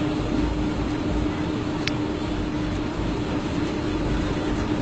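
Steady city street noise: a low traffic rumble under an even hiss, with a faint constant hum and one short tick about two seconds in.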